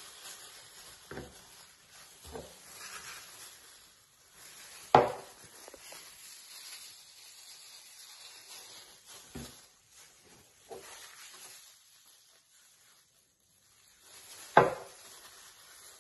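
Thin plastic food-prep gloves rustling and squelching as raw sausage meat is squeezed out of its casings, with a handful of sharp knocks against the plastic bowl, the two loudest about five seconds in and near the end.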